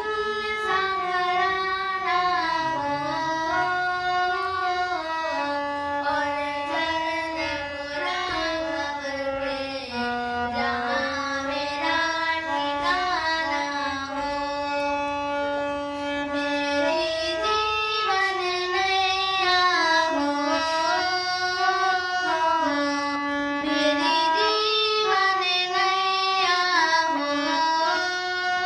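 Hindi devotional bhajan music: a sung melody over instrumental accompaniment, moving in steps up and down in pitch without a break.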